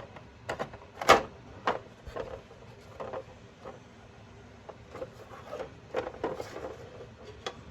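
Scattered light clicks and knocks of small hard parts being handled and set down while a scoring box is reassembled, the loudest knock about a second in.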